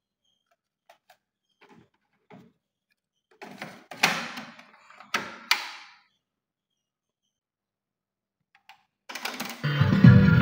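A few faint clicks, then several sharp knocks and thunks, the loudest about four seconds in and twice more around five seconds in. Music from the hi-fi comes in near the end.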